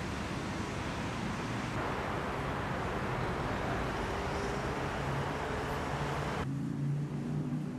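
Steady outdoor hiss of distant road traffic. About six and a half seconds in the hiss cuts off suddenly, leaving a low engine hum.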